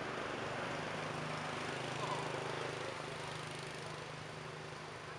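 Motorbike engine running steadily with a low hum, over outdoor traffic noise, and one brief faint chirp about two seconds in.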